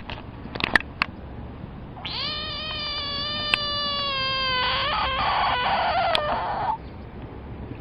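A frog's distress scream when threatened: one long, high wailing call of about four and a half seconds that turns into a harsh rasp near the end and stops abruptly. A few sharp clicks come before it, in the first second.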